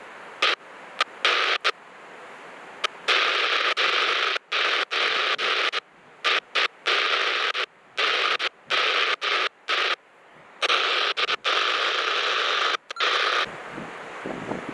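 Marine VHF radio static cutting in and out in rapid, abrupt bursts as the squelch opens and closes, with no intelligible voice. Near the end the hiss stops and wind and surf noise take over.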